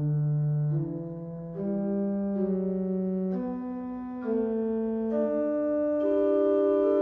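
1970 M.P. Möller Opus 10501 pipe organ playing slow, sustained chords, the held notes moving to new pitches every second or so. A new phrase begins right at the start, after a brief break.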